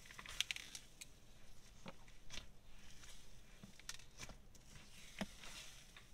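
Icy slime being poked and stretched by fingers in a plastic tub: faint, scattered crackles and small pops, a few a second, from its wet, sizzly icy texture.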